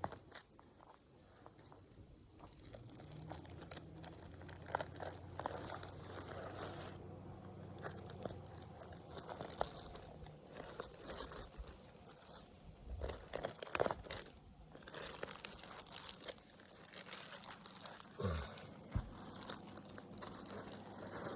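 Roofing material being handled and stuck down, with scattered crinkling and rustling. A steady high insect chirring carries on underneath, and a low hum comes in for several seconds in the first half.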